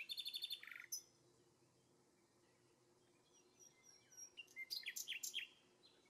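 Small birds calling: a quick run of high chirps and a short trill in the first second, then another burst of sharp, falling chirps about five seconds in.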